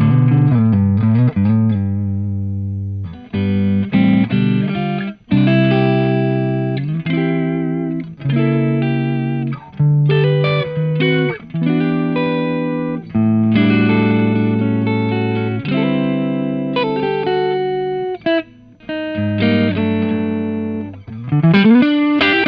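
Electric guitar on its neck humbucker, played through a Mr. Comando compressor pedal set with more sustain and clipping into a Fender Deluxe Reverb amp: strummed chords and single notes, each held long and slowly fading. A sliding note comes near the start and again near the end.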